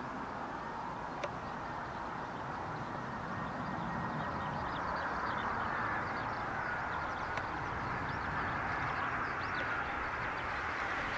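Boeing 737 twin jet engines at approach power as the airliner comes in to land: a steady rushing noise with a faint high whine, growing louder about a third of the way in as the aircraft nears.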